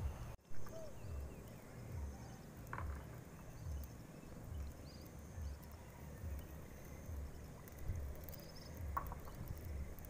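Small open fire of dry twigs crackling now and then under a stainless pot, over a steady outdoor hiss with low thumps about twice a second. There is a brief dropout and a sharp bump about half a second in.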